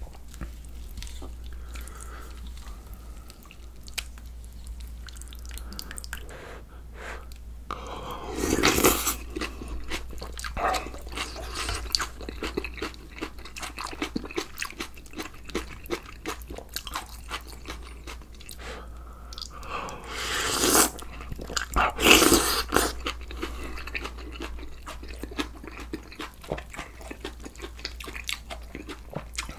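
Close-miked eating sounds of a person eating spicy beef tripe soup with rice, kimchi and raw onion: chewing and crunching, with many small clicks and a few louder bursts about nine seconds in and around twenty-one and twenty-two seconds in.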